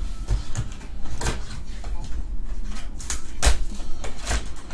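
Several light knocks and taps of trading cards and their packaging being handled on a table, the loudest about three and a half seconds in, over a low hum.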